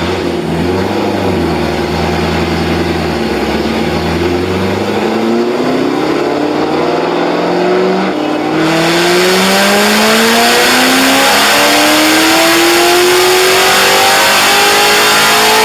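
Supercharged V8 of a 2015 Corvette Z06 with an aftermarket heads-and-cam package, running on a chassis dyno. It holds a steady speed for about four seconds, then the revs climb steadily through one long pull, getting louder about halfway through.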